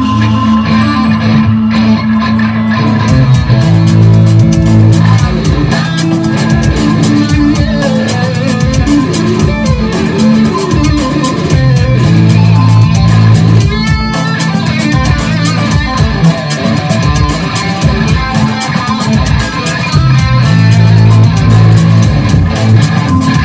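1983 Ibanez electric guitar played through effects pedals over an electronic backing track with a steady beat and sustained bass notes.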